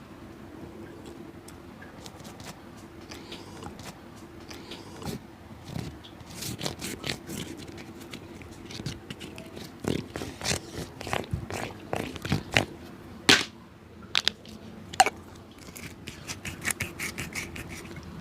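Hand work on an old shoe: irregular scrapes and sharp clicks of a tool against the shoe, sparse at first and then frequent, with a couple of louder sharp strikes past the middle, over a faint steady hum.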